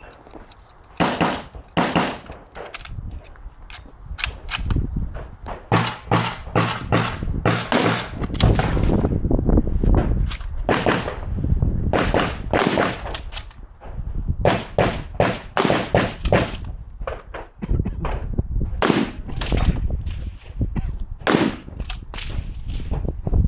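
Lee-Enfield bolt-action rifle in .303 British fired shot after shot, loud single cracks spaced irregularly, often a second or so apart. The bolt is worked by hand between shots.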